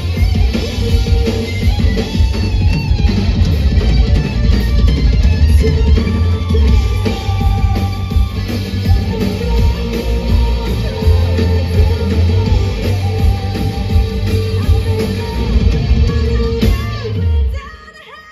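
Live rock band playing loud, led by electric guitar over a heavy bass line, breaking off sharply near the end.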